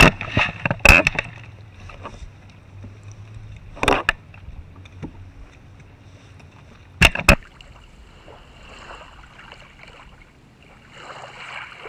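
Water sloshing against a plastic kayak hull, with several sharp knocks or splashes: a cluster at the start, one about four seconds in and a quick double one about seven seconds in.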